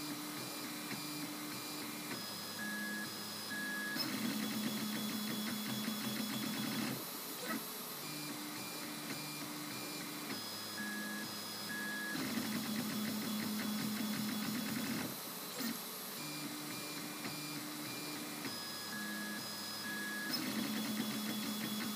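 MendelMax 2 3D printer's stepper motors moving the print head over a small ABS cube: a whine of steady tones that jump from one pitch to another as the head changes moves, with a louder, buzzier stretch about every eight seconds.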